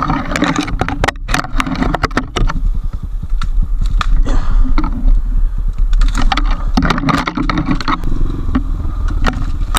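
Enduro motorcycle engine running while riding off-road, with frequent sharp knocks and rattles over rough ground.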